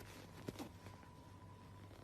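Near silence: faint room tone with a low hum and a thin steady tone, and one brief click about half a second in.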